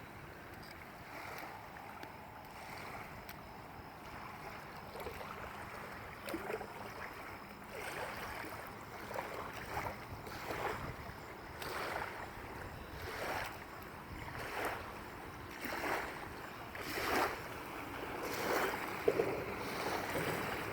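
Small waves lapping and splashing at the water's edge, a slap about every second and a quarter, growing louder in the second half.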